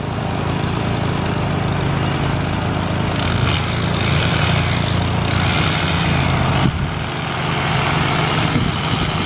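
Engine-driven tree-trimming equipment running steadily, with a harsher hissing stretch from about three seconds in to nearly seven seconds in.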